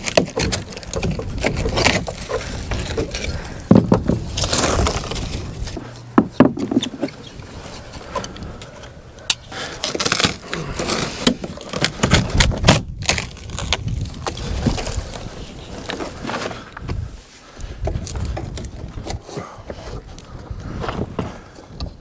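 Rotten timber being broken out of an 80-year-old wooden boat's deck edge and beam shelf with a hammer and by hand: irregular knocks, cracks and splintering of decayed wood.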